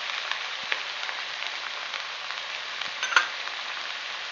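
Chopped cabbage sizzling in hot mustard oil in a kadhai: a steady frying hiss with small crackles. One light clink comes about three seconds in.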